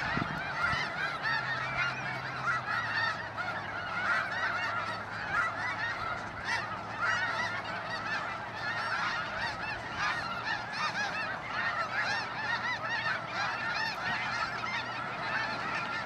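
A dense chorus of many waterfowl calling at once, steady and unbroken, over a faint low hum.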